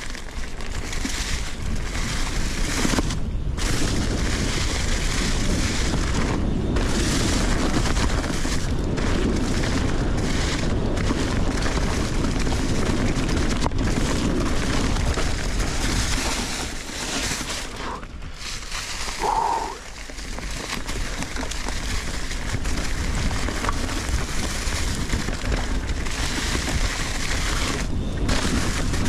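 Wind buffeting the microphone and riding noise while a Nukeproof Giga 290 enduro mountain bike is ridden along a trail. The noise eases off for a few seconds about two-thirds of the way through, and a short high tone sounds at that point.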